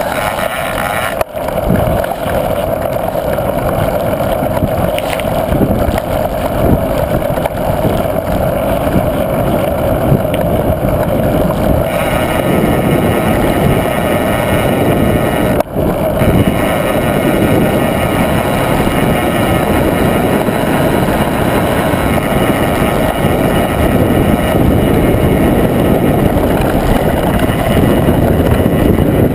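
Wind buffeting an action camera's microphone, mixed with mountain-bike tyre rumble on the road at speed: a loud, steady rush. It cuts out for a moment twice, about a second in and about halfway through.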